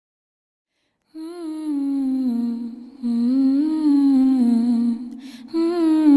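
Background music: a single voice humming a slow melody in held, gliding notes, starting about a second in.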